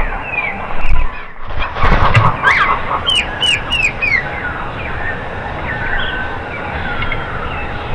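Small songbirds chirping: a quick run of four high, down-slurred chirps about three seconds in, then scattered single calls. Low rumbling bursts come about one and two seconds in.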